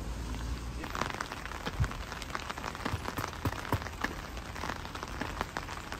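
Steady rain, with many irregular drops tapping sharply, as on an umbrella close by, from about a second in. A low rumble sits under it at first.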